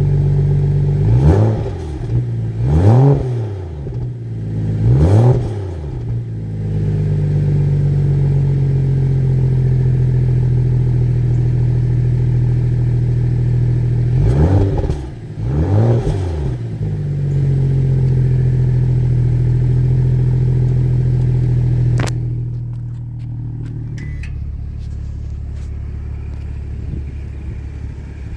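BMW M235i xDrive with its stock exhaust, idling in Sport mode and revved in quick blips, each rising and falling: three close together, then two more a little later. Near the end there is a sharp click, and the engine note drops to a quieter, lower hum.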